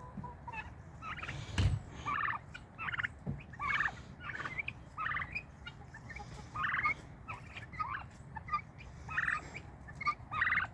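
Farm poultry calling over and over, short harsh pulsed calls about once a second, with a single thump about one and a half seconds in.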